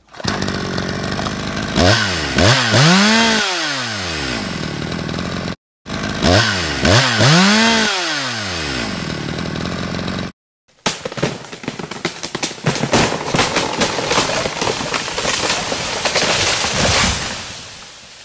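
Husqvarna top-handle chainsaw revved in quick bursts, its engine pitch rising and falling several times. The same burst sequence plays twice, each time cut off by a brief silence. Then comes a longer, denser stretch of rattling saw noise that fades out near the end.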